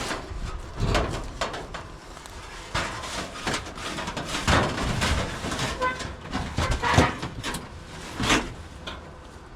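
A series of irregular knocks and scrapes, like things being handled and set down, with the sharpest knock about seven seconds in.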